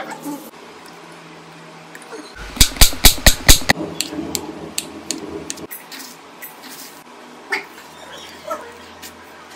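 Kitchen knife chopping on a wooden cutting board: a quick run of about six sharp, loud strokes a couple of seconds in, then scattered lighter knocks and clicks.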